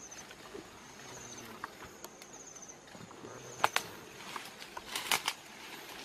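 Dry twigs crackling and snapping: a few sharp cracks, the loudest about three and a half seconds in and a quick cluster around five seconds. Under them, a faint high insect chirp repeats at an even pace.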